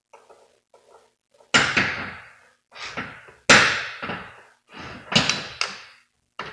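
A series of about eight heavy knocks at an uneven pace, each dying away over about half a second; the two loudest come about one and a half and three and a half seconds in.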